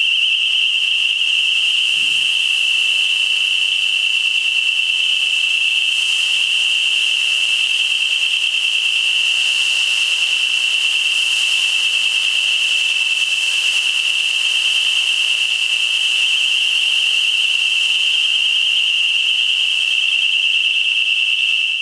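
Intruder alarm sounder holding one continuous high-pitched tone with a fast warble, over the hiss of security fog generators discharging fog.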